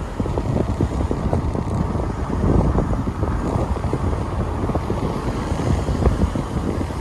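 Wind buffeting the microphone with low road rumble from a moving car, an uneven, gusty rush.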